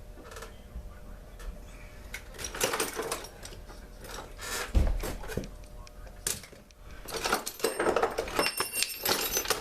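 Metal hand tools and small parts clinking and rattling as they are handled, with a thump about five seconds in and a busier rattle with brief metallic ringing near the end.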